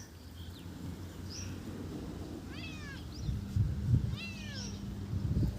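Domestic cat meowing twice, about two and a half and four seconds in, each call falling in pitch, over a low rumbling noise.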